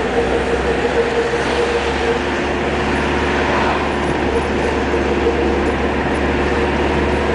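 A car's engine and tyre noise while driving at steady speed, an even rumble with a constant drone that drops away for a couple of seconds in the middle.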